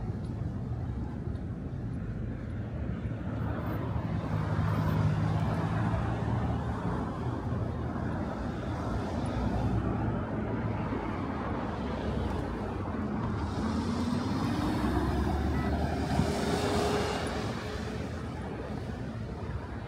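City road traffic passing with a steady rumble. About two-thirds of the way in, one vehicle's engine rises steadily in pitch as it speeds up.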